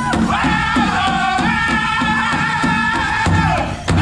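Powwow drum group singing a chicken dance song in high, sustained voices over a steady beat on a big drum. Near the end the singing breaks off briefly and a strong beat follows.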